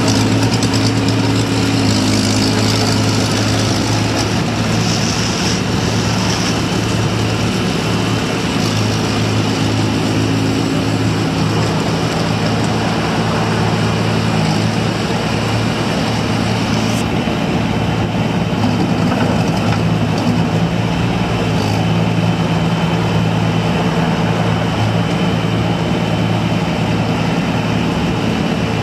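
1998 IHI 28J mini excavator's diesel engine running steadily while the machine travels on its tracks and swings its boom, the engine note dipping and rising a little as it works.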